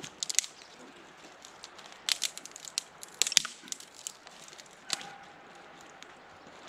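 Small dry sticks being snapped by hand for kindling: a handful of sharp cracks and crunches, coming in separate bursts a second or so apart.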